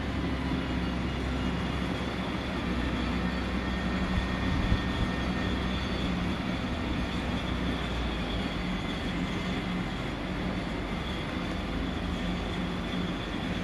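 Heavy tree-service equipment, a crane and a wood chipper, running steadily on diesel engines: a constant engine hum with a faint high whine and no distinct events.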